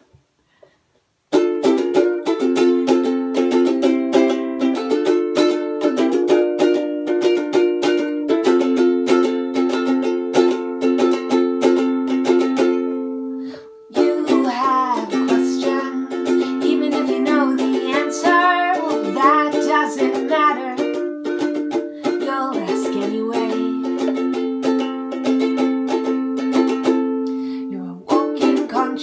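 Ukulele strummed in a steady rhythm, starting about a second in. From about halfway a woman's singing voice joins the chords and carries on over them.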